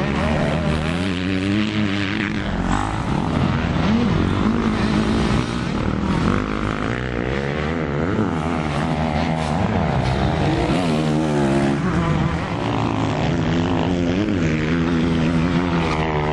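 Several off-road motocross bike engines revving, the pitch climbing and dropping again and again as the throttle is opened and closed, with more than one engine heard at once.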